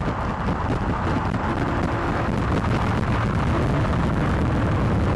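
Steady low rumble and wind noise of a moving car.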